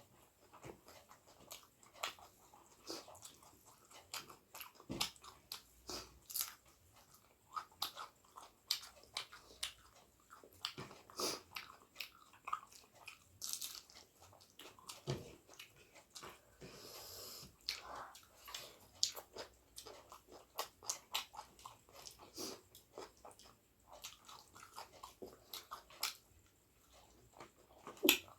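Close-miked mukbang eating sounds: a person chewing and biting into curry and rice, with a steady run of irregular wet mouth clicks and smacks.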